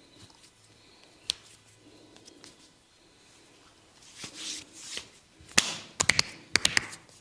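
Massage sounds from a barber's hands: a single sharp tap about a second in, a couple of brushing rubs, then a quick run of sharp slaps or claps near the end.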